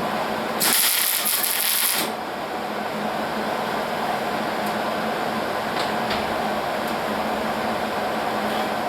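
Hobart Handler 140 MIG welder arcing on sheet metal with a steady crackling buzz, with a louder, brighter hiss for a little over a second about half a second in.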